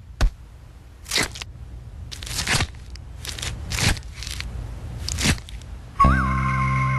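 Cartoon eating sounds: a sharp click, then about six short crunching, tearing bites as a pizza is eaten. Electronic music starts abruptly about six seconds in.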